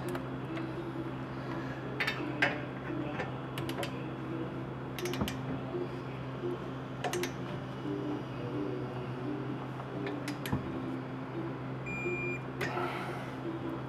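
Scattered short metallic clicks and clinks of a socket wrench and torque wrench on a brake caliper bracket's 17 mm bolts, over a steady low hum.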